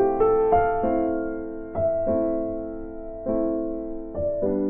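Slow piano background music: single notes and chords struck every half second to a second, each ringing and fading away.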